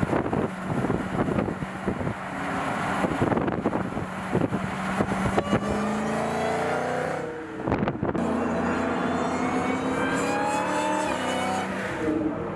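Supercharged 6.2-litre V8 of a Dodge Charger SRT Hellcat Redeye running at speed on a steady note, then climbing in pitch as it accelerates, with a brief dip about two-thirds of the way through.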